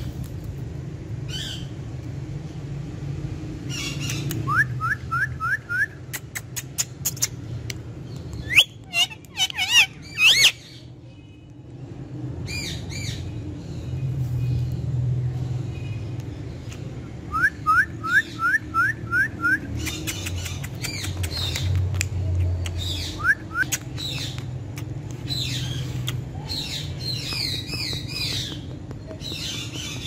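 Indian ringneck parakeet calling: quick runs of five or six rising chirps, and a few loud rising squawks about nine to ten seconds in, with scattered sharp clicks between them.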